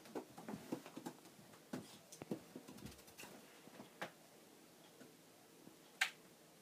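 A cat pawing and moving about on a pile of clothes while playing with Lego figures hung on strings: soft scattered taps and rustles, busiest in the first three seconds, with a single sharper click about six seconds in.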